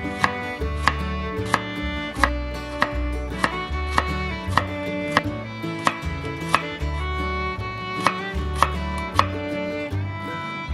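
Kitchen knife slicing garlic cloves on a wooden cutting board, the blade knocking the board in an even rhythm of roughly one and a half strikes a second, over soft instrumental background music.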